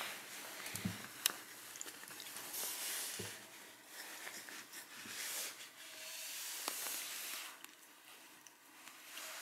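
A cat's fur brushing and rubbing right against the camera microphone: repeated soft swishing rustles with a few soft thumps and small clicks.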